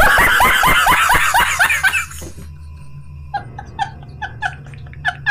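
A man laughing hard: a loud burst of rapid, falling 'ha-ha-ha' pulses for about two seconds, then quieter, higher-pitched laughs about three a second, over a steady low hum.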